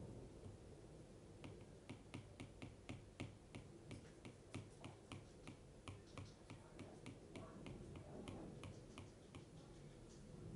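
Apple Pencil tip tapping rapidly on the iPad Pro's glass screen, about four light clicks a second, starting about a second and a half in and stopping near the end.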